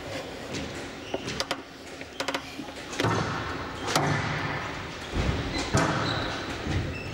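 Squash rally: a series of sharp cracks as the ball is struck by the rackets and hits the walls, with players' feet thudding and scuffing on the court floor.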